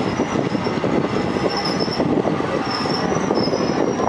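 Passenger train moving through a station: steady rumble and clatter of wheels on rails, with several short high-pitched wheel squeals in the second half.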